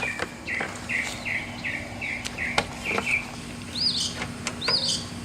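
Birds chirping: a quick series of short down-slurred notes, two to three a second, and then, about four seconds in, a few higher arched notes. A faint steady hum and a few light clicks run underneath.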